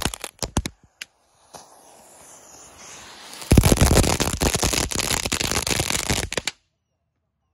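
Black Cat 'Haulin Fast' ground novelty firework crackling as it throws sparks: the truck's spark fountain crackles briefly, a faint hiss follows, and then the two toy cars' spark-and-flame jets crackle loudly from about three and a half seconds in before cutting off suddenly.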